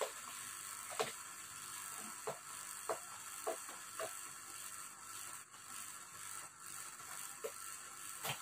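Paper and cardboard handling as a gift box is opened and its tissue paper pulled about: a series of short crinkles and taps over a steady hiss.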